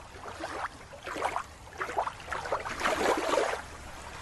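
Underwater recording: irregular bubbling, many short rising gurgles, over a faint low steady hum.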